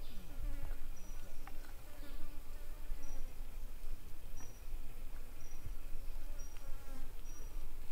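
A fly buzzing, its hum wavering in pitch, with short high insect chirps repeating about once a second and a few faint crackles.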